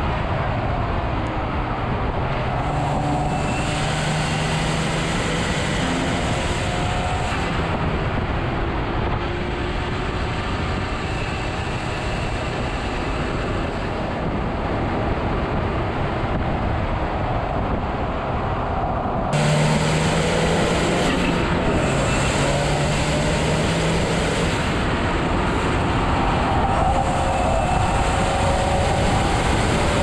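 Ford Focus RS's turbocharged 2.3-litre four-cylinder, fitted with a Borla ATAK exhaust, pulling hard at track speed, its note rising and falling through the gears over heavy wind and tyre noise. About two-thirds of the way through, the sound turns abruptly louder and brighter.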